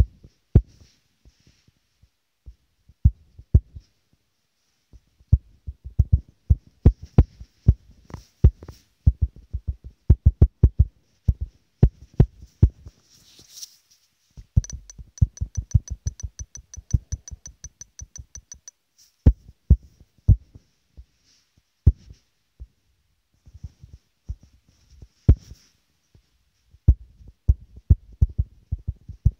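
Irregular taps and thumps of fingers on a phone's touchscreen and body, picked up by the phone's own microphone while drawing, with a few seconds of fast, even ticking about halfway through.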